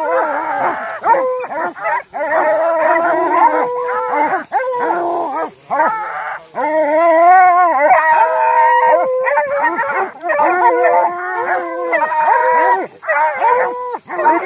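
A pack of beagle-type hounds baying and howling over a downed deer, several voices overlapping in long drawn-out calls with only brief breaks.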